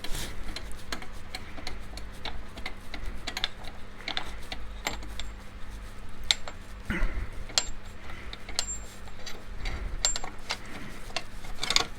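Irregular small metal clicks and ticks as the mitre saw's arbor bolt is worked loose and unscrewed, with a somewhat louder knock about seven seconds in.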